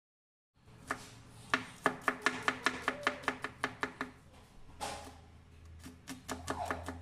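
A kitchen knife chopping garlic cloves on a wooden cutting board: quick knocks of the blade against the board, about four or five a second. They start about half a second in, pause briefly around the middle, then resume.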